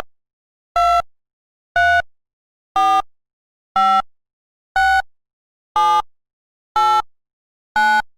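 A series of short electronic beeps, about one a second, each a clipped tone at a slightly different pitch with silence in between.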